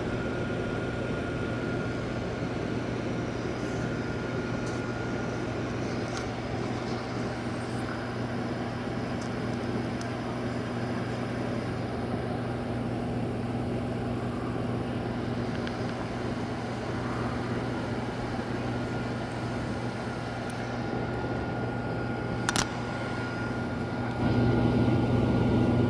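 Steady motor drone with a constant hum that does not change in pitch, one sharp click a little over 22 seconds in, and the drone getting louder near the end.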